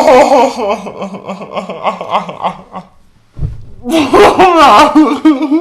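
Women laughing hard in pulsing fits; the laughter dies away about three seconds in, a short low thump follows, then a second loud burst of high laughter.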